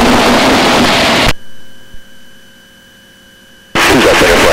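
Aircraft intercom/radio audio feed in flight: a loud rushing hiss of open-mic noise cuts out about a second in. It leaves a faint, steady electrical whine, and the hiss switches back on abruptly near the end.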